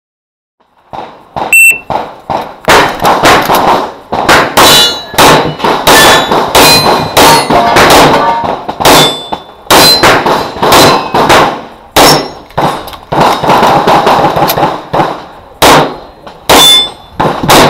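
A shot timer's start beep, then a CZ Shadow 2 pistol firing many loud shots in quick strings at steel targets, the shots mixed with the ringing clang of poppers and plates being hit.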